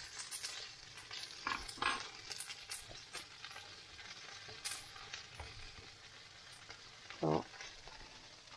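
Food sizzling in a frying pan, a faint steady hiss, with a few light clinks and taps of utensils on plates.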